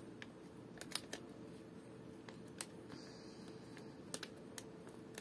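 Faint handling of trading cards and their packaging: a few small, scattered clicks and ticks, with a brief soft rustle about three seconds in.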